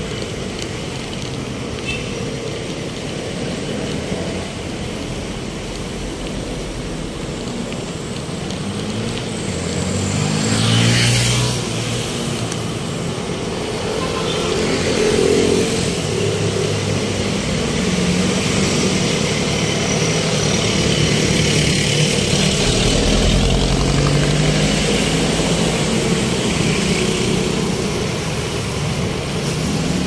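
City street traffic: vehicle engines running and passing, with one vehicle growing louder and rising in pitch as it passes about ten seconds in.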